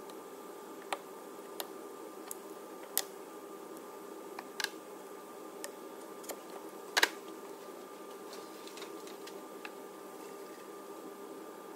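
Scattered sharp plastic clicks and knocks as a new plastic coolant reservoir is handled and seated in a car's engine bay, the loudest about seven seconds in, over a steady low background hum.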